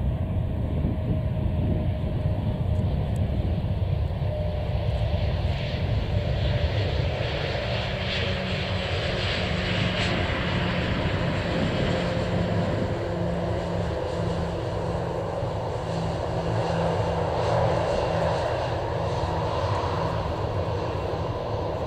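Airbus A340-300's four CFM56 turbofan engines running on the landing roll: a steady jet rumble and hiss. A droning hum comes in about nine seconds in, and the sound swells slightly near the end.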